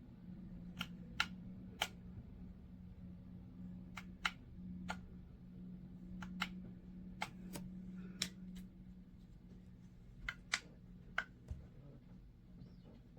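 A small electric fan's motor running with a low steady hum, overlaid by a dozen or more sharp, irregularly spaced clicks and taps.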